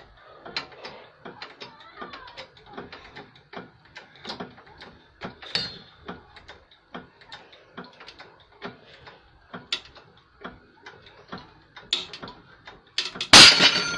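Ratcheting tensioner clicking in short irregular strokes, a few a second, as a rope rig is pulled up to about 20 kN of load. Near the end comes one loud sharp bang, followed by ringing tones.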